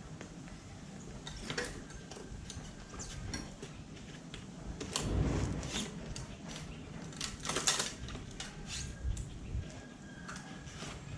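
Metal clinking and rattling as the rear wheel of an upside-down mountain bike is worked out of its frame, with louder clatters about five seconds in and again near eight seconds.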